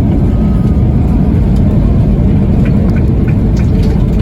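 Loud, steady rumble inside a Boeing 737-800's cabin during the landing roll: engine roar and wheel and runway noise, with a few light rattles of cabin fittings about two and a half to four seconds in.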